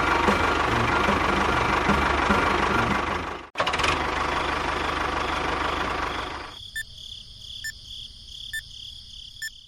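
An engine running with a knocking, pulsing rhythm, broken by a sudden cut about three and a half seconds in. It then gives way, near two-thirds through, to a quieter steady high tone with faint ticks about once a second.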